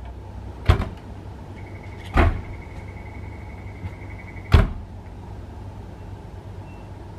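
Hakone Tozan Cable Car standing at the station over a low steady hum: three loud clunks of its doors, and between the second and third a steady high buzzer tone of about three seconds that stops with the last clunk as the doors shut.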